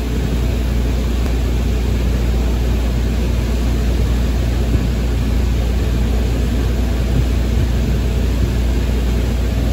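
Willis 32120ENC CNC flat-bed lathe running, its spindle turning a workpiece in the chuck: a steady low hum under an even rush of machine noise.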